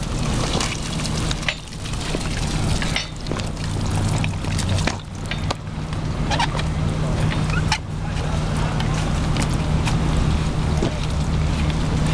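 Fire engine's engine and pump running steadily, with scattered knocks as hose lines and couplings are handled.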